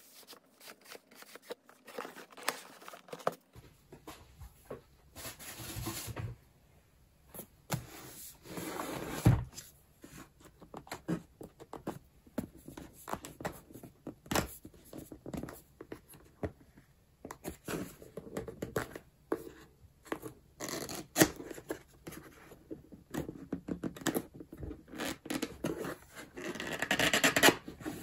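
Cardboard keyboard packaging being handled and opened: the box rubbing and scraping as it is turned and its sleeve slid off, with scattered taps and knocks. A longer, louder scrape comes near the end.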